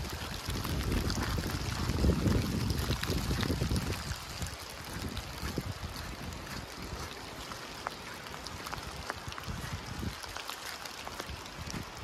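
Steady rain falling in a forest, with many individual drops ticking sharply over the hiss. A low rumble of wind on the microphone runs through the first few seconds, then dies away.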